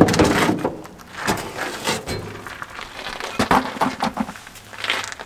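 Irregular knocking and clattering of loose parts being moved about in an old car's trunk, loudest at the very start.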